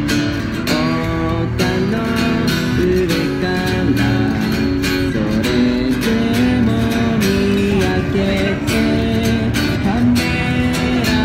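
Steel-string acoustic guitar strummed in a steady rhythm through a passage of a song where no lyrics are sung, with a melodic line held over the chords.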